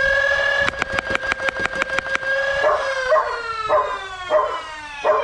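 Foxfire Talon Select 3D-printed flywheel blaster on full auto at six darts a second. Its Kraken flywheel motors whine at a steady pitch, the solenoid pusher fires a rapid burst of shots for about a second and a half, then the flywheels spin down in a slowly falling whine. A dog barks several times during the spin-down.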